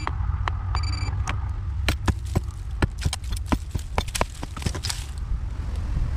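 A metal detector pinpointer sounds a short steady alert tone about a second in. Then, from about two seconds in, a curved metal blade chips and scrapes at old brick and mortar in a quick run of sharp clicks and knocks, over a steady low rumble.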